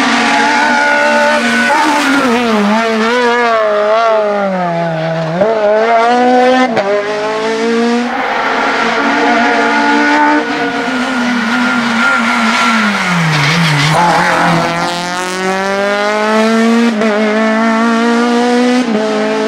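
Honda Civic race car's 16-valve VTEC four-cylinder engine revving hard. The pitch climbs through each gear and drops sharply at the shifts and braking, several times over.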